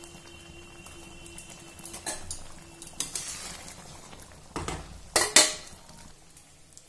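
A metal spoon clinking and scraping against a metal kadhai while kofta balls are stirred through thick gravy. There are several scattered knocks, the loudest a little past the halfway point.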